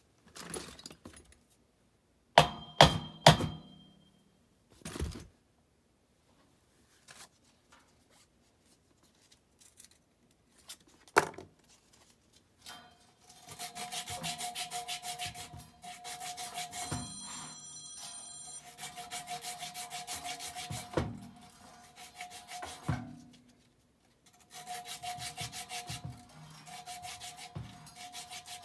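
Sheet-metal furnace blower housing and squirrel-cage blower wheel handled from inside. There are a few sharp metallic knocks early on, then long runs of fast, rhythmic scraping strokes from about halfway in, with short pauses between the runs.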